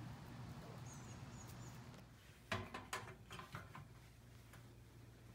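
Faint outdoor background with a few short high chirps. About halfway through, a quick run of four or five sharp metallic clicks and knocks from a metal locker door being unlatched and swung open.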